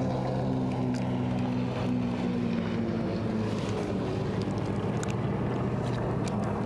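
Motorboat engine from a passing boat, a steady low drone whose pitch sinks slightly, over a constant hiss of wind and water.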